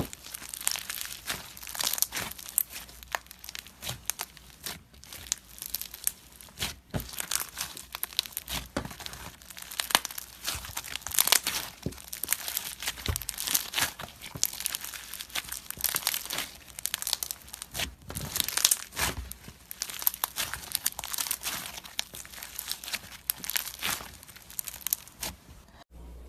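Slime being squeezed, stretched and pressed by hand, giving a steady stream of sharp crackles and pops that stops abruptly near the end.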